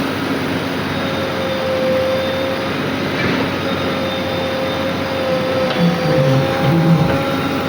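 Diesel engine of a JCB 3DX backhoe loader running steadily under work, with a steady whine on top. A few short low pulses near the end, the loudest moment.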